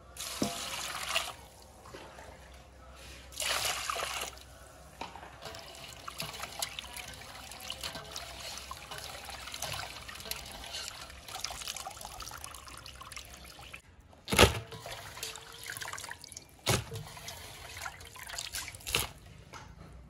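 Water poured and splashing in a steel bowl as whole raw shrimp are swished and rinsed in it by hand. A few sharp knocks come in the second half, the loudest about two-thirds of the way through.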